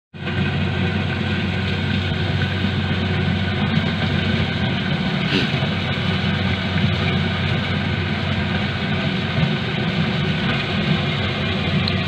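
Corn harvester engine running steadily with a constant hum while the machine works through the standing corn.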